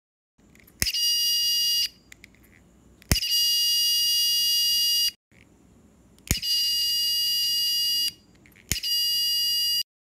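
Piezo buzzer of a homemade BC547 transistor flame alarm sounding a steady high-pitched tone in four bursts of one to two seconds each. Each burst opens with a sharp click as a lighter is struck near the IR flame sensor, which trips the alarm.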